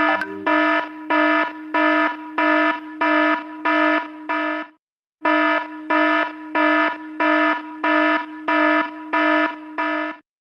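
Alarm clock buzzer beeping: a harsh buzzing tone sounding in even pulses a little under twice a second, with a half-second break about halfway through.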